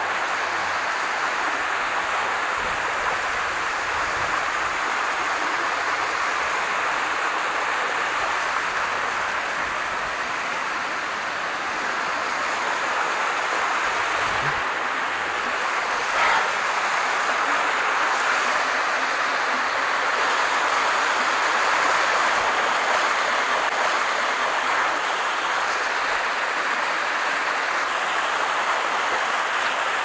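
Steady rush of a waterfall's falling water.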